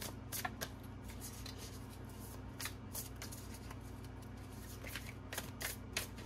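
A deck of tarot cards being shuffled by hand in short, uneven bursts of papery swishes and taps, over a steady low hum.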